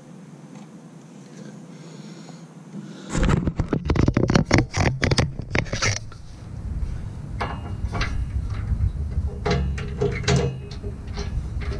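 Hand work on bolts under a pickup truck. After about three seconds of quiet, a dense run of sharp clicks and knocks comes, followed by rustling, scraping and scattered clicks as a hitch bolt is fitted by hand into the frame.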